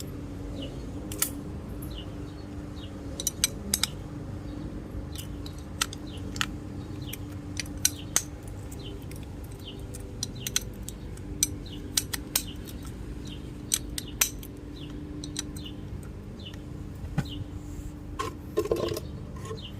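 Scattered sharp metallic clicks and taps as small tools and metal carburetor parts are handled during disassembly, over a steady low hum.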